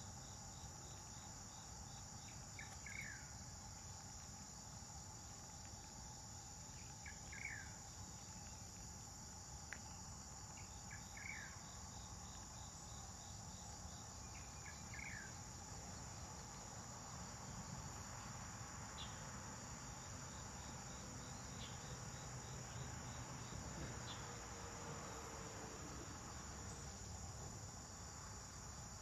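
Faint, steady high-pitched trilling of insects, with a few short chirps now and then over a low rumble.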